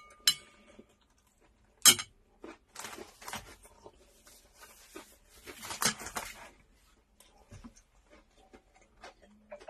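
Mealtime table sounds: a light metallic clink as chopsticks are laid on a stainless steel dish, a sharp tap about two seconds in, then a few seconds of paper napkin rustling as the mouth is wiped.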